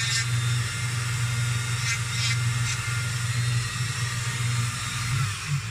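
Flexible-shaft rotary tool running steadily, its fine engraving bit scratching lines into a small wood carving, with a few brief scratchy bursts about two seconds in. The motor stops near the end.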